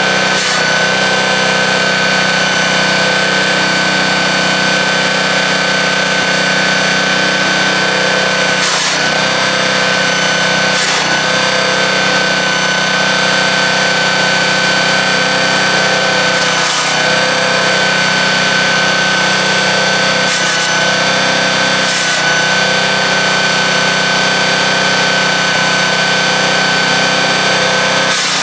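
Landworks wood chipper running with a steady high whine. About six times, a brief burst of noise and a slight dip in the whine as branches go through and are chipped.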